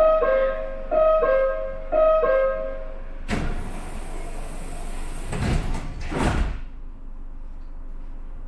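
Metro train's door-closing warning: a two-note chime, high then low, sounding three times about a second apart, then the sliding doors closing with a hiss and two thuds.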